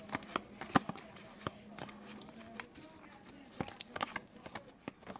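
Magic: The Gathering trading cards being handled and flipped through one by one, a run of sharp, irregular card snaps and clicks.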